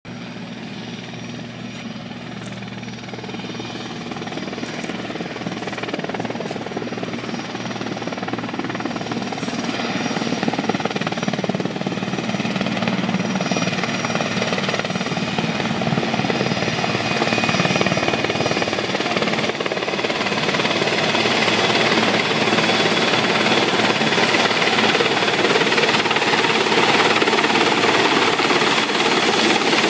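Large helicopter approaching and descending to land, its rotor and engine noise growing steadily louder as it comes close.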